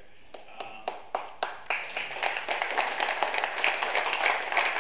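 Audience applause: a few separate claps, then within about two seconds the whole room joins in steady clapping.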